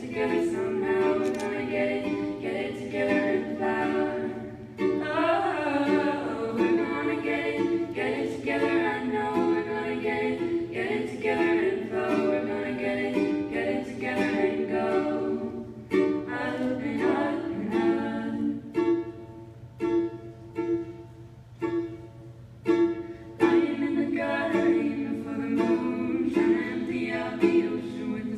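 Three female voices singing together in harmony through microphones, with a strummed acoustic stringed instrument. About two-thirds of the way through there is a sparser stretch of short, separated notes before the full singing returns.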